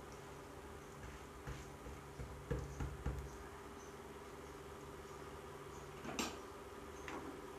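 Rice tipped from a plastic bag into a pot of broth: soft rustles and a few short knocks, the loudest cluster about two and a half seconds in and one sharp click about six seconds in, over a steady low hum.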